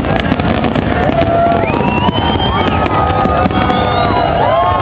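A fireworks display bursting and crackling continuously, with several rising whistles among the bangs.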